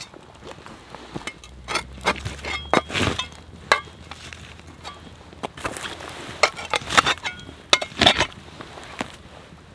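Campfire crackling while a metal shovel pokes, scrapes and clinks against the burning logs and the stones of the fire ring. Irregular sharp cracks and ringing clinks come in clusters, loudest about three seconds in and again around seven to eight seconds.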